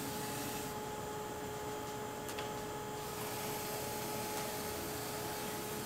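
Cavity wax sprayed from an aerosol can through a long extension wand into a car's rocker panel, hissing for about two seconds shortly after the start. A steady background hum runs underneath.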